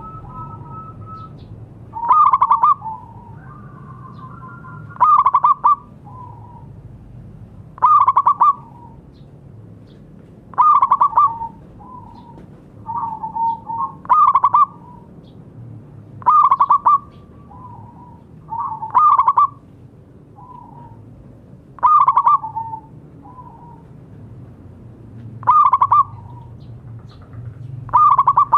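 Zebra dove (perkutut) singing: a short, loud phrase of rapid cooing notes repeated about every three seconds, with softer notes in between.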